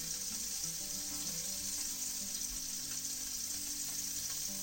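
Salmon steaks frying in hot olive oil in a pan: a steady sizzle.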